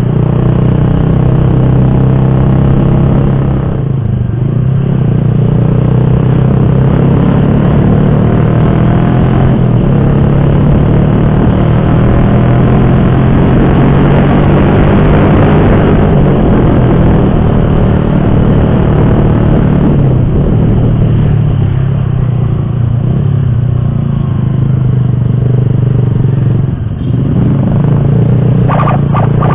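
Motorcycle engine running under way with heavy wind and road rush, easing off briefly about four seconds in and again near the end.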